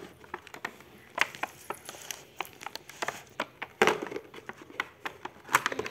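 Cardboard delivery box and a packaged earring card being handled and pulled out: irregular crackles, scrapes and taps, with sharper knocks about four seconds in and near the end.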